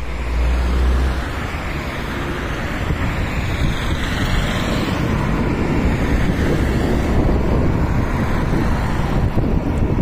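Wind buffeting the microphone with a heavy low rumble, over the sound of cars passing on the road.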